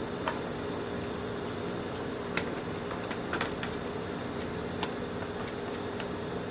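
Steady machine hum of workshop background, with scattered light clicks and taps of small vacuum-cleaner parts being handled.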